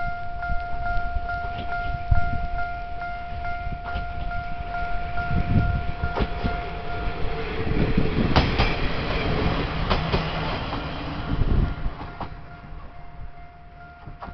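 Japanese level-crossing warning bell clanging steadily, then a diesel railcar passing over the crossing, its wheels thumping over the rail joints for about four seconds and drowning the bell, which is heard again near the end.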